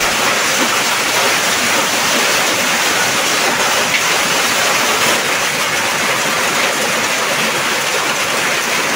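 Hailstorm: heavy hail and rain pouring down steadily, a dense, unbroken rush of stones and water striking the ground and roofs.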